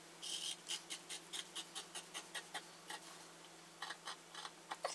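Scissors snipping through fabric in a quick run of short cuts, about four or five a second, pausing briefly around three seconds in and then snipping again.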